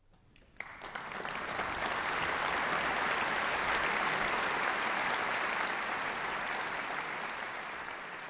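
Concert hall audience applauding. The applause starts abruptly about half a second in, fills out into a dense, steady mass of clapping, and eases slightly near the end.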